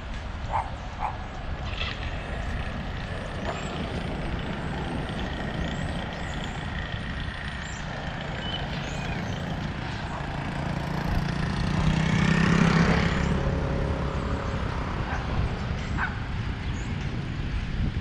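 A motor scooter passes close by, its engine hum growing to its loudest about twelve to thirteen seconds in, then fading away. Steady wind noise runs underneath.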